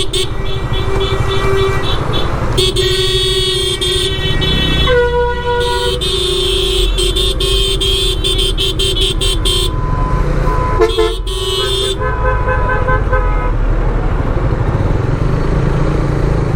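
Vehicle horns honking again and again in highway traffic, several horns of different pitch, over the steady low rumble of a motorcycle riding along the road.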